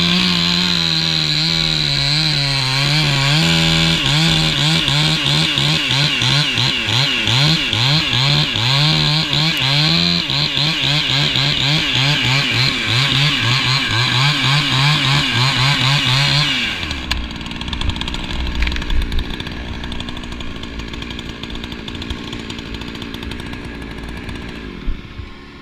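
Two-stroke chainsaw running hard, cutting through a Siberian elm trunk, its engine note wavering up and down again and again as it works in the cut. About two-thirds of the way through the engine note drops away, leaving a quieter rumble with a couple of knocks.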